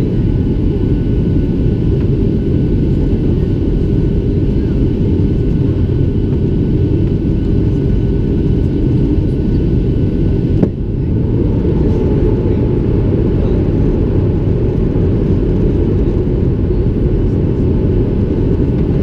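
Cabin noise of a Boeing 737-700 in flight on descent: a steady deep rumble from its CFM56 engines and the airflow, heard from a window seat over the wing. A single brief click comes about ten and a half seconds in.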